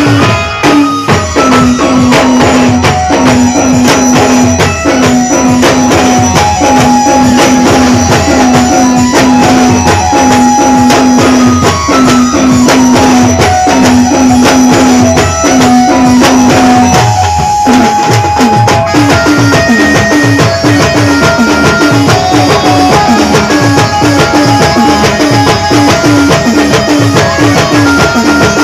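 Timli folk band music: dense, steady drumming under a melody that repeats short notes, which breaks off briefly about two-thirds of the way through and then comes back.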